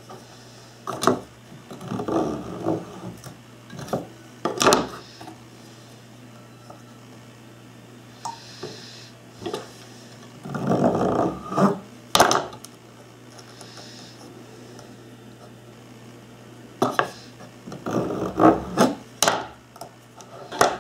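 Hand work on a small wooden model wheel: round wooden toothpicks being pushed into the hub holes and trimmed off with a small blade. It comes as short bouts of scraping and rubbing on wood, broken by several sharp clicks and knocks on a plastic cutting board, over a faint steady low hum.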